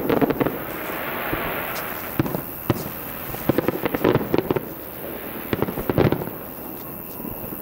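Aerial fireworks shells bursting, heard from a distance: clusters of sharp bangs and crackles come every second or two, the loudest about six seconds in.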